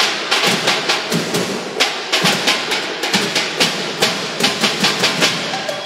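A percussion band's drums playing a fast, dense rhythm of strikes.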